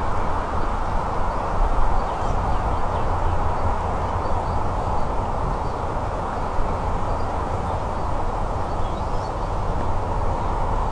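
Steady wind rushing over the microphone outdoors, with a strong low rumble.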